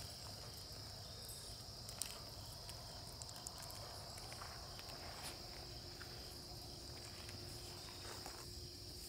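Insects in the meadow, crickets, trilling as one unbroken high-pitched drone, with a few faint ticks over it.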